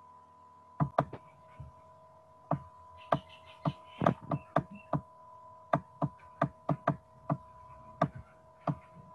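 Irregular sharp taps of a stylus on a writing tablet while handwriting, about a dozen strokes spread unevenly, over a steady electrical hum.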